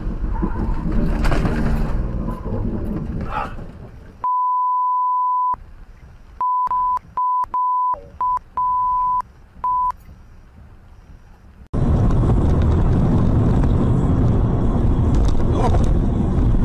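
Censor bleeps: a steady 1 kHz tone that replaces the sound, once for about a second and then six short bleeps, with in-car road and rain noise from a car driving on a wet highway around them. About 12 s in, the sound cuts to louder road and engine noise of another car driving.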